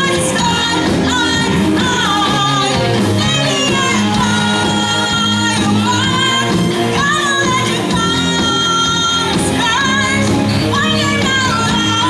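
Live pop-rock band playing a cover song: electric guitar, drums and keyboard under a lead singer, loud and steady throughout.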